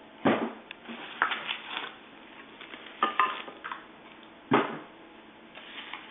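Scissors snipping plastic tie wraps and packaging off a scooter frame: a few sharp snaps, the loudest about a quarter second in and again past four and a half seconds, with smaller clicks between.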